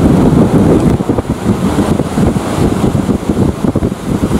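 Sikorsky H-60 Black Hawk-family military helicopter flying past, its rotor giving a rapid, fluttering chop, mixed with wind buffeting the microphone.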